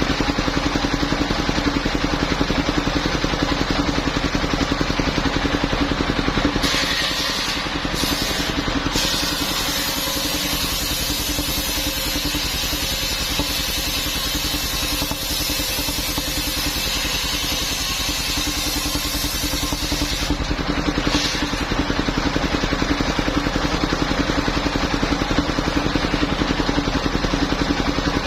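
Engine of a portable circular sawmill running steadily. From about seven seconds in until about twenty, the circular blade cuts through a coconut-palm trunk, adding a high hiss over the engine.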